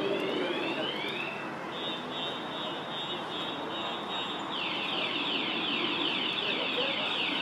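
A car alarm sounding and cycling through its tones: repeated rising sweeps, then a fast-pulsing high warble, then rapid falling sweeps about three a second. Underneath is a steady background of street noise.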